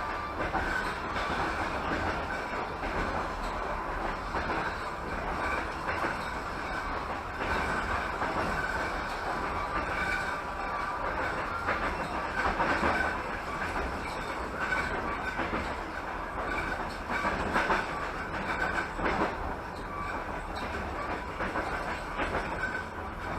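Passenger train running along the line, heard from inside a carriage: a steady rumble of wheels and rails, with irregular clacks over rail joints and a faint high ringing tone.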